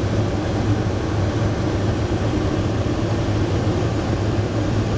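Steady rush of airflow through an ultralight aeroplane's cockpit as it glides with the engine shut off and the propeller stopped, with a low steady drone underneath.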